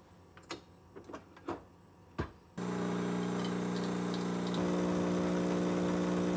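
Nespresso capsule coffee machine: light clicks as it is handled and started, a sharp click a little after two seconds in, then its pump runs with a loud steady buzzing hum as coffee pours into the cup. The hum shifts slightly in pitch about four and a half seconds in.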